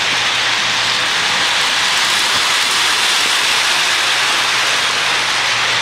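Electric toy train running on its track, a steady hissing whir with a low hum underneath.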